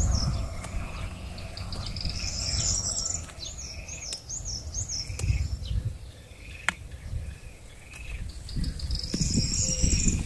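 Small birds chirping in repeated short, high notes, busiest in the first half and again near the end. Low rustling noise at the start and near the end, and one sharp snap about two-thirds of the way through.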